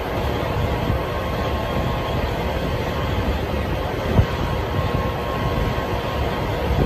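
Steady low mechanical drone with a faint hum, with a brief knock about four seconds in.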